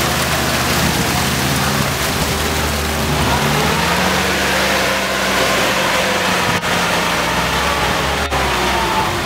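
UAZ off-road vehicle engines running under load as they plough through deep mud and water, the engine note rising about three and a half seconds in and staying up, over a steady wash of churned mud and water.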